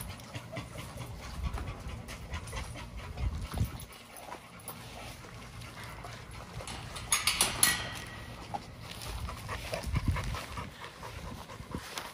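XL pitbulls panting and chewing raw chicken, with many short crunching clicks. A louder noisy burst comes about seven seconds in.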